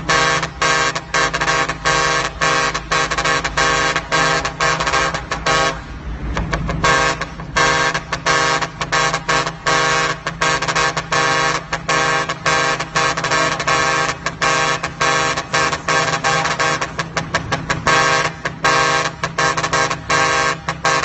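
Truck horn sounded over and over in quick short and longer blasts, all on the same chord, with a brief break about six seconds in. A steady low hum runs underneath.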